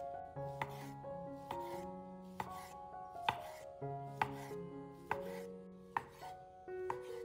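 Chef's knife slicing a sausage into rounds on a wooden cutting board, the blade knocking sharply on the wood about once a second. Soft background music plays underneath.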